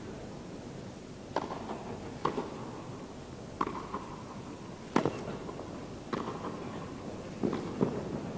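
Tennis rally: a ball struck back and forth by rackets and bouncing on court, about seven sharp pocks a little over a second apart, starting about a second and a half in, over a low steady background hum.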